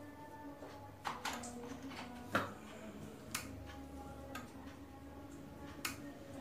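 Egg incubator turning rack's small motor and Omron DH48S-S timer: light irregular ticks, roughly one a second, over a faint steady hum.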